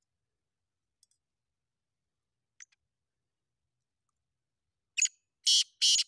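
Caged black francolin starting its call about five seconds in: three short, loud notes in quick succession, half a second apart. Before that there is near silence, with two faint ticks.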